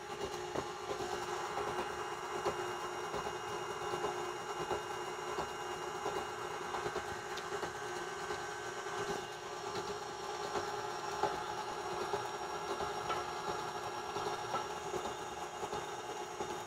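KitchenAid stand mixer running at a steady speed, its flat beater turning through thick cake batter, with a constant motor hum and faint ticks from the beater.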